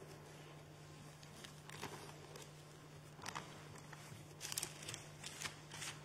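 Thin Bible pages being leafed and turned, heard faintly through the pulpit microphones as short dry paper rustles that come more often in the second half. A steady low hum runs underneath.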